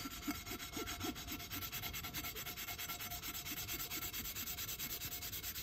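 Scrubbing a frying pan with cleaning paste, a fast, even back-and-forth rub at about six strokes a second, working at baked-on grease stains on the pan's coating.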